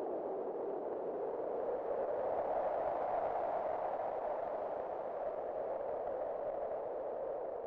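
Wind howling as a steady hollow rush, its pitch rising and swelling about three seconds in, then sinking and easing off toward the end.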